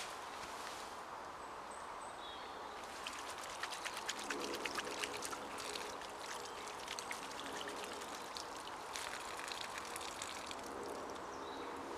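Water running from an outdoor standpipe tap and splashing over cupped hands as they are rinsed under it. The splashing starts about three seconds in and eases off near the end as the tap is turned off.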